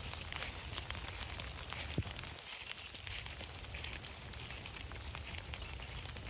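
Steady rain pattering, a dense crackle of small drops on leaves and wet ground over a low rumble, with one sharper tick about two seconds in.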